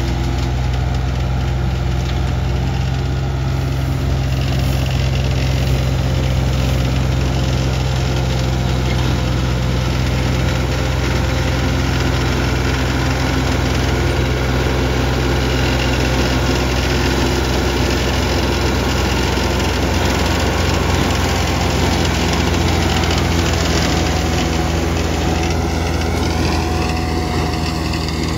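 New Holland TL90 tractor's diesel engine running steadily as it drives a Case disc mower cutting tall grass. A wavering higher whine joins near the end.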